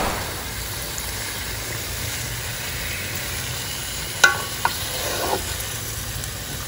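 Marinated beef sizzling in hot oil with fried onions and whole spices in a large metal pot as it is stirred with a wooden spatula, the start of searing the meat (kosha). About four seconds in, two sharp knocks of the spatula against the pot.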